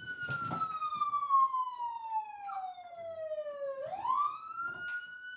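Recorded police car siren playing back in a slow wail: the pitch falls steadily for nearly four seconds, sweeps quickly back up about four seconds in, and starts falling again. Faint clicks and knocks sound underneath.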